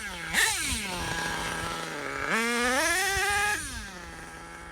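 HPI Savage 3-speed nitro RC truck's small glow engine idling, with a quick throttle blip near the start. About two seconds in comes a longer rev that climbs in steps, then it falls back to a steady idle about a second and a half later.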